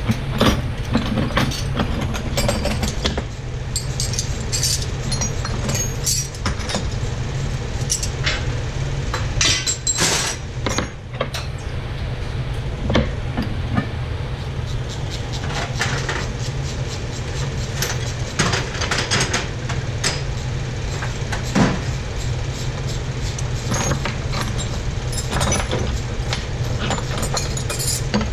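Hand tools clinking and clanking on engine parts, a scatter of sharp metal knocks and clicks during an engine teardown, over a steady low hum.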